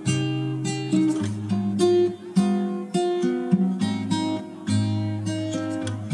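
Background music: acoustic guitar strumming chords that change every second or so.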